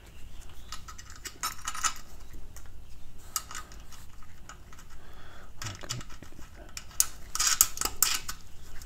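Small metal clinks and rattles of a hand tool working the bolts of a bicycle engine kit's mount as they are tightened, in irregular clusters of clicks, busiest near the end.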